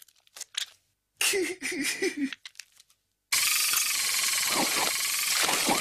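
Cartoon sound effects of a toy robot drinking a milkshake: a few quick clicks, then a wobbling gurgle, then, about halfway through, a loud steady hiss that runs on.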